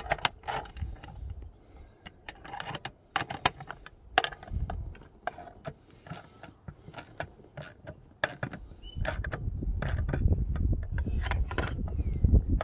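Ratchet wrench clicking in short bursts as a bolt is tightened down onto a stainless steel spreader plate. A low rumble sets in over the last few seconds and becomes the loudest sound.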